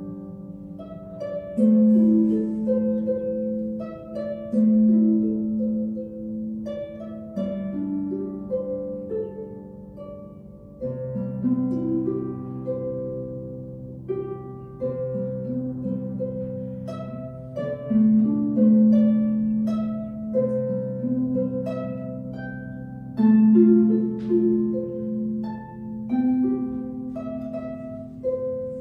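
Solo 38-string Simsonharps harp with an arc-shaped sound box being played: a slow melody of plucked notes that ring on over sustained low bass notes.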